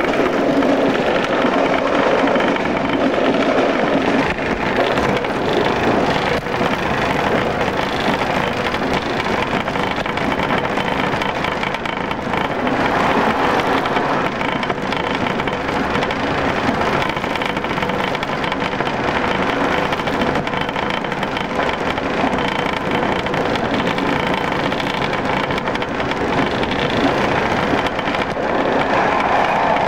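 Class 115 diesel multiple unit running along the line, heard from inside the carriage: a steady, even mix of engine and wheel-on-rail noise with a faint hum under it.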